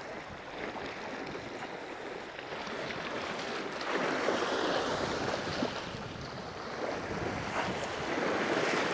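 Sea surf washing against rock ledges, swelling louder about four seconds in and again near the end, with wind on the microphone.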